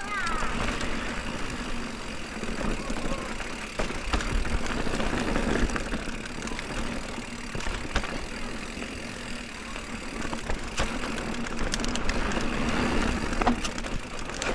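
Mountain bike rolling over a rough, stony trail: steady tyre and riding noise with a low rumble and scattered sharp knocks and rattles.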